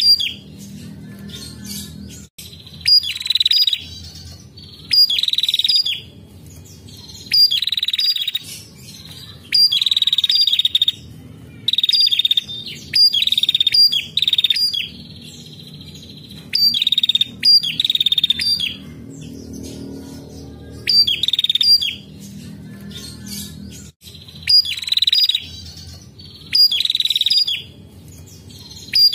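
Caged female prenjak, a rufous-headed tailorbird, calling in short bursts about every two seconds. Each burst is a quick run of sharp, high notes lasting about a second. A faint low hum runs underneath.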